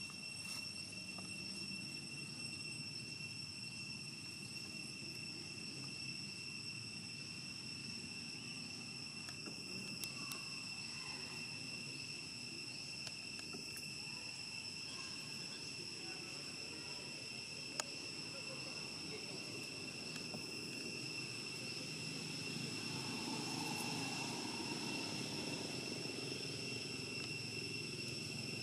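Insects droning in the trees: one unbroken high whine with overtones over a low outdoor rumble. A couple of sharp clicks break in, the louder one about eighteen seconds in.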